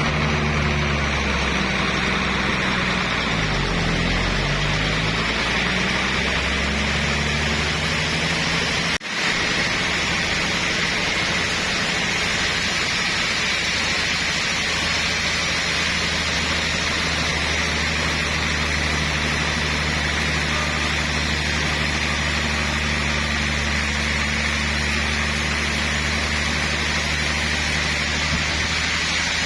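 Sawmill machinery running steadily: a low engine hum under a steady hiss, its pitch dipping and rising again in the first few seconds, with a brief break about nine seconds in.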